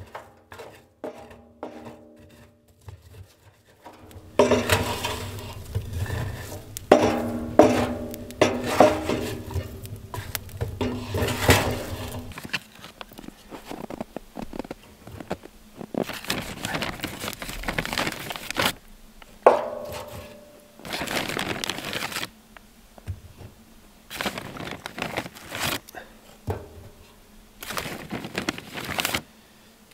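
Fuel being loaded by hand into an old steel wood stove through its open firebox door: a run of rustling, scraping and clattering with metal clanks, coming in separate bursts of a second or two.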